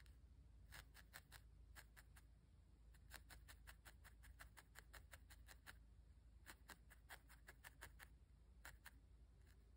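Faint, quick clicking pokes of a fine No. 40 triangle felting needle stabbing into wool, in runs of several pokes a second with short pauses between.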